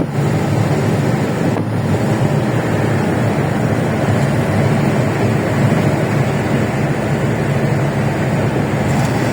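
Steady wind and road noise from a vehicle travelling at speed, with wind rushing over the microphone and a low running hum.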